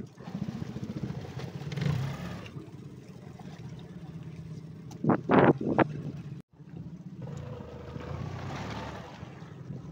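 Fishing boat's engine running steadily, with wind and water hiss over it. A short loud burst comes about halfway through.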